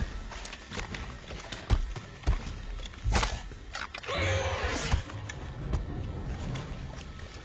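Film sound effects: scattered thuds and clicks, with a short growl from the alien dog creature about four seconds in.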